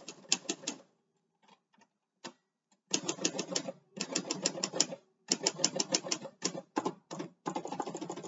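Olympia SM-series manual typewriter typing in fast runs of sharp key strikes, several a second, with a pause of about two seconds near the start and a denser run at the end.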